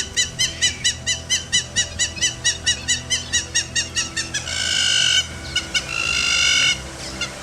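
Hamerkop calling: a fast run of short, high notes, about five a second, which drops slightly in pitch about four seconds in, then two longer drawn-out calls.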